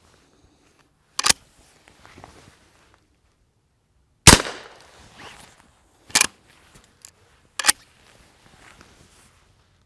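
Henry Garden Gun, a smoothbore lever-action .22 LR, firing CCI shotshells: four sharp cracks, the loudest about four seconds in with a short ring after it. Fainter clacks in between as the lever is worked to chamber the next round.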